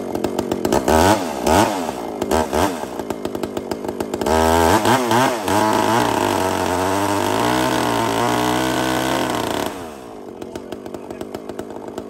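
Big two-stroke chainsaw with a 4-foot bar, blipped up and down a few times, then held at high revs for about five seconds. It drops back to a lower, pulsing run near the end.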